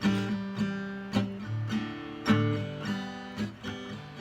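Acoustic guitar strumming chords steadily, an instrumental passage with no singing.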